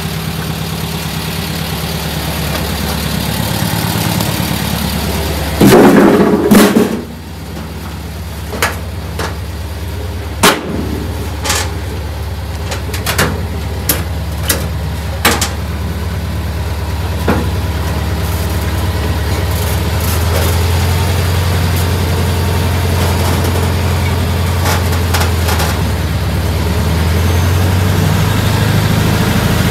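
A vehicle engine running steadily, with a loud burst of noise about six seconds in and a scatter of sharp clicks and knocks over the next ten seconds. From about twenty seconds in, the engine runs a little louder and deeper.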